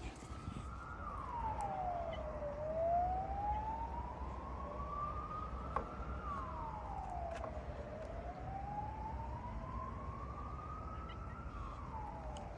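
Siren wailing: a single tone climbs slowly in pitch for about four seconds, then drops quickly, rising and falling twice over.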